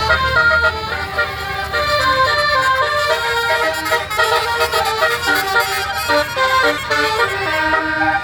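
Basuri multi-tone 'telolet' bus horn playing a fast melody of short, changing notes, over a low engine rumble.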